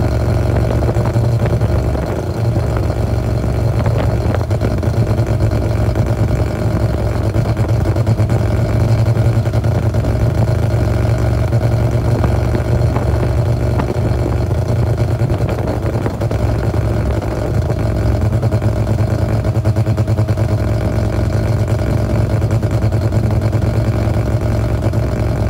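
Engine of a homebuilt open-wheel roadster with aluminium bodywork, running steadily under way and heard from the open cockpit; its level dips briefly twice, about two seconds in and around sixteen seconds.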